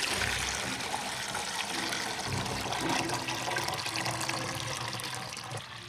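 Liquid pouring and trickling steadily: thick sweet potato starch batter running off a spoon into a bowl.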